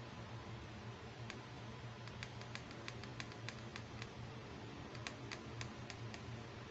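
Light plastic clicks and taps as hard plastic fashion dolls are handled and walked on a tabletop: a single click, then two quick runs of about three or four clicks a second with a short pause between them, over a steady low hum.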